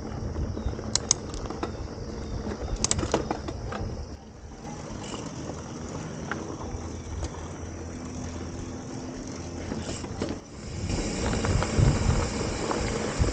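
Mountain bike riding over a dirt trail: steady tyre rumble with wind on the microphone and occasional sharp clicks and rattles from the bike. The rushing noise grows louder near the end.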